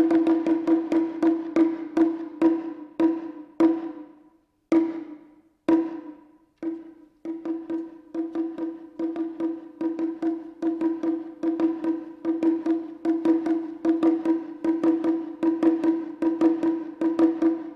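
Japanese taiko drumming: crisp, pitched strokes. The strokes slow and spread apart to a brief pause about five seconds in, then pick up again in a steady, even rhythm of about four strokes a second.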